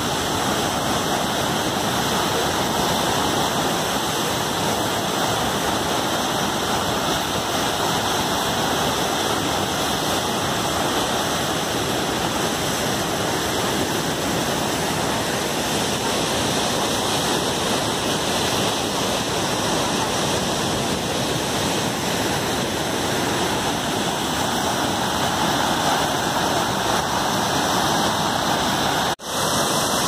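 Canal water rushing and churning in whitewater as it pours past a bridge's stepped stone piers: a steady, loud roar, broken by a brief gap about a second before the end.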